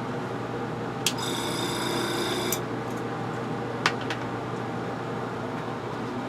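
Small air compressor running with a steady low hum. About a second in, an airbrush is triggered and sprays with a high whistling hiss for about a second and a half; a single click follows near the middle.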